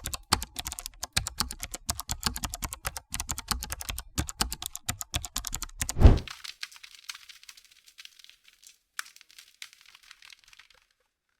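Fast typing on a computer keyboard, a quick run of key clicks, with one heavier thump about six seconds in. Lighter, sparser clicks follow and stop about ten seconds in.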